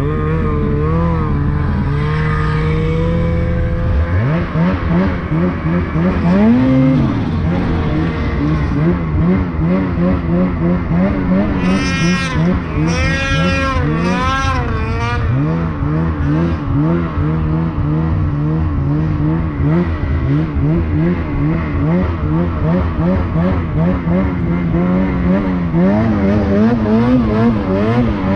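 Two-stroke mountain snowmobile engine running while riding through deep snow, its pitch rising and falling with the throttle, with a quick run of sharp revs about twelve to fifteen seconds in.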